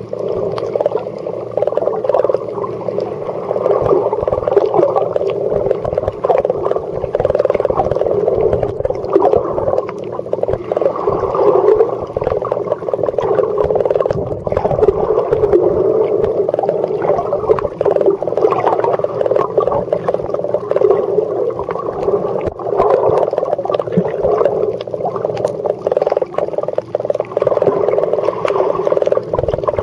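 Muffled underwater noise picked up by a camera held below the surface on a shallow reef: a steady, dull rushing with scattered faint clicks and crackles.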